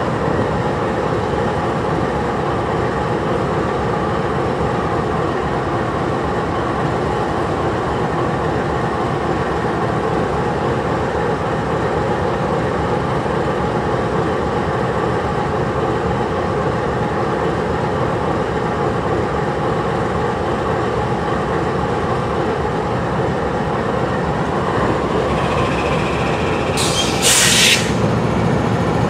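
Norfolk Southern GE diesel-electric locomotive idling at a standstill, its engine running steadily. A brief hiss comes near the end.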